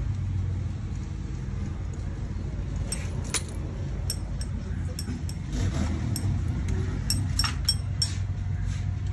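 Metal spanner clinking and clicking against bolts on an electric power steering motor housing as the bolts are loosened, in scattered sharp clicks that come more often near the end. A steady low hum runs underneath.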